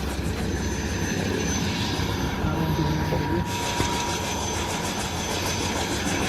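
Helicopter running steadily with its rotor turning: a continuous engine whine over a fast, even rotor chop.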